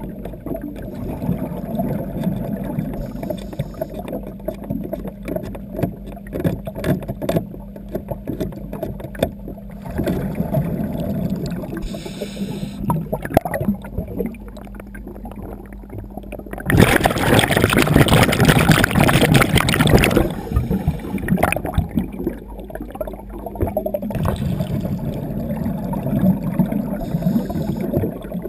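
Underwater sound heard by a scuba diver's camera: a steady low hum with constant crackling clicks. About seventeen seconds in comes a loud bubbling rush of roughly three seconds, the diver exhaling through the regulator.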